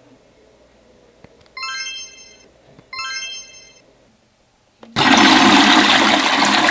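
Two bright electronic chimes about a second apart, each ringing out and fading, then a loud rushing noise that starts suddenly about five seconds in.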